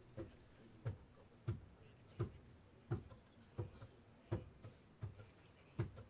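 Faint, steady rhythmic knocking: a dull low thud about every two-thirds of a second, with lighter taps falling between them.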